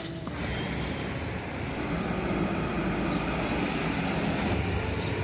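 Steady street traffic rumble and hiss, with a few short, faint high chirps scattered through it.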